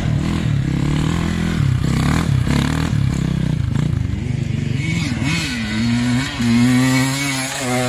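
KTM EXC 450 single-cylinder four-stroke enduro engine running and being revved, its pitch rising and falling with repeated throttle blips, then holding a little higher near the end.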